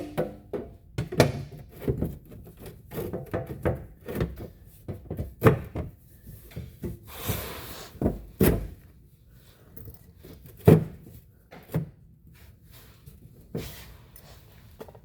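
An access cover on a Kawasaki Teryx4 side-by-side being handled and fitted back into place: irregular knocks, clicks and rattles, with a short scraping rustle about halfway through and a sharp knock about two-thirds through.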